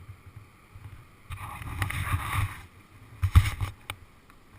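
Water splashing and sloshing around a kayak for about a second and a half, then a single hard knock with a low thud, followed by a couple of light clicks.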